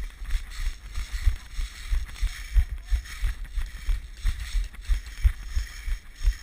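Dull thuds, about three a second, jolting a body-worn action camera as its wearer moves on foot, over a steady rustling hiss of clothing and wind on the microphone.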